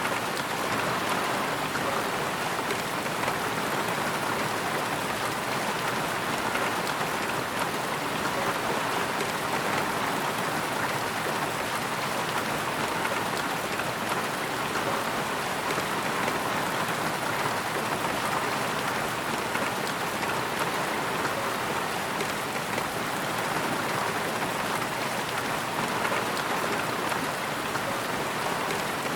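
Steady rain falling on a surface, an even dense patter of drops with no thunder.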